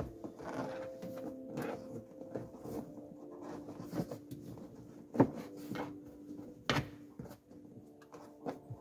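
Hard plastic interior trim panels clicking and knocking as a cable is pressed in behind them by hand and with a plastic trim tool, in irregular taps with two louder knocks about five and nearly seven seconds in.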